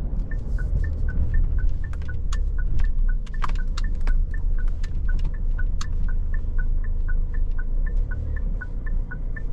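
Car running with a steady low cabin rumble, overlaid by an even, rapid ticking about three to four times a second and a few irregular knocks and clicks. The rumble eases near the end.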